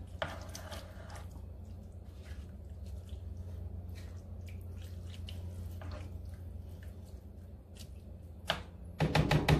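A spatula stirring a thick, wet cream sauce with chunks of chicken and vegetables in a skillet, making soft squelching and occasional light scrapes against the pan. A steady low hum runs underneath.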